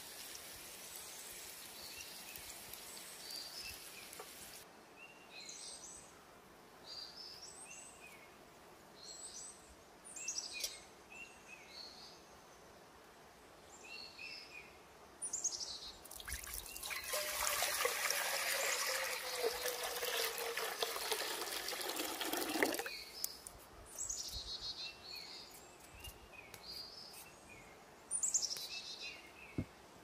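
Water poured from a height into a cast-iron pot for about six seconds, starting about halfway through, the loudest sound here, with a tone sliding down as it goes. Before it, hot oil sizzling in a cast-iron skillet of roasting potatoes; small birds chirp throughout.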